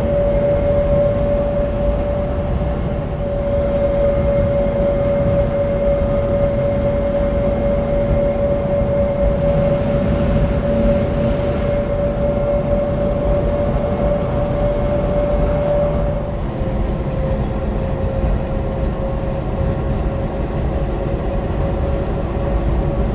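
Steady road and traffic noise at highway speed beside a semi truck pulling a livestock trailer, with a constant droning tone that steps slightly lower about two-thirds of the way through.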